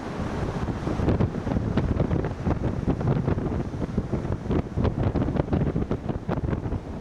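Strong wind buffeting the microphone in uneven gusts, over the rush of storm surf breaking on the beach.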